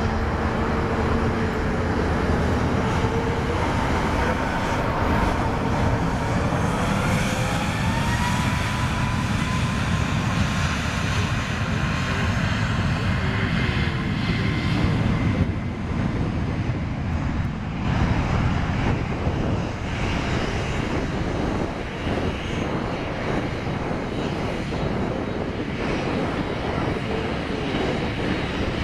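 Boeing 737 MAX 8's CFM LEAP-1B jet engines running at takeoff thrust as the airliner accelerates down the runway: a loud continuous roar with a fan whine that slides in pitch as it passes. In the second half, the steady running of a second Boeing 737's engines close by.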